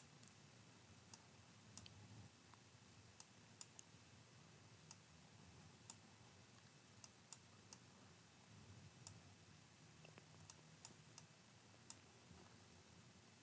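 Near silence: faint room tone with scattered, irregular clicks of a computer mouse and keyboard.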